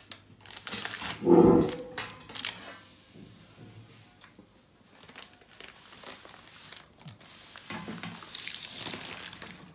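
Baking paper crinkling and a metal baking tray and oven rack clattering as pizzas are moved in and out of the oven. A brief, loud pitched cry comes about a second and a half in.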